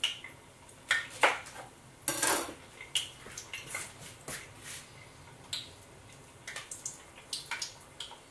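Kitchen utensils clinking and knocking against a bowl and the countertop in irregular, scattered strikes. There are two sharp knocks about a second in and a short scrape at about two seconds.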